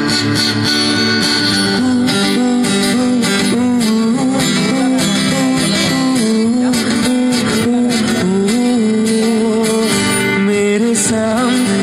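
Live acoustic guitar being strummed, with a melody that bends in pitch carried over it.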